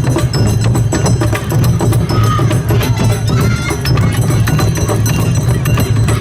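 Live Awa Odori festival music: taiko drums and clacking percussion playing a driving, unbroken rhythm, with short higher pitched phrases sounding above it.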